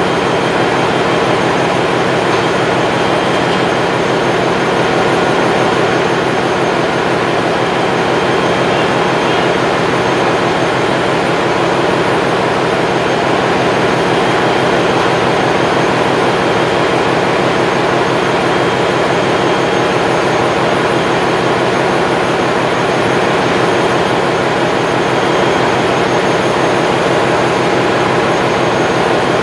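Ship's engine-room machinery running: a loud, even din with faint steady whines, unchanging throughout.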